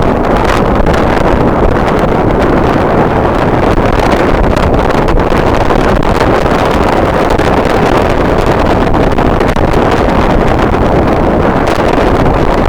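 Strong wind blowing across the microphone: a loud, steady rumble.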